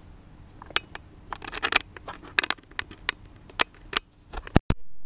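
Handling noise on a GoPro Hero 3 in its open skeleton housing: irregular clicks and taps from fingers on the camera, ending in two heavier knocks about four and a half seconds in.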